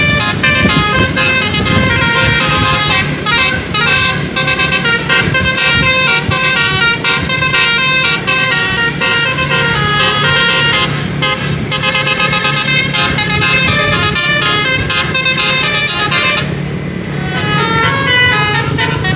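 Telolet musical air horn on a bus playing a long, fast run of many different notes, over the steady hum of the bus engine. The melody breaks off briefly near the end, then resumes.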